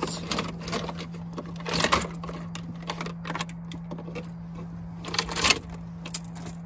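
Aftermarket wiring being pulled out of a pickup truck's cab: a run of irregular clicks, rattles and rustles of wires and plastic trim, with two louder stretches, about two seconds in and near five and a half seconds. A steady low hum lies underneath.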